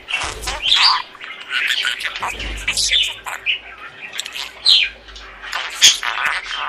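Budgerigars chattering: quick chirps, squawks and short whistles sweeping up and down in pitch, overlapping without pause, with a low rumble underneath about two seconds in.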